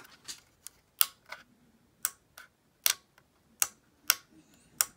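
Small plastic switch on the rework station's case being flipped back and forth by hand: about nine sharp clicks at uneven spacing, roughly two a second. The switch is bypassed in the wiring, so flipping it does nothing.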